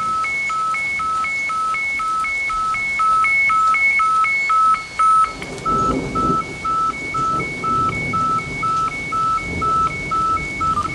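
Radiotelephone two-tone alarm signal over a marine VHF radio: a high tone and a lower tone alternating about four times a second, the alarm sent ahead of a Coast Guard Mayday Relay broadcast. About halfway through, rough radio noise comes in under the tones and the signal starts breaking up.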